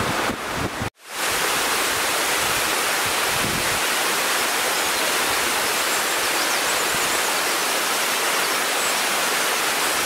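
Twin waterfall, two streams falling into one plunge pool: a steady, dense rush of falling water. The sound cuts out briefly about a second in and comes straight back.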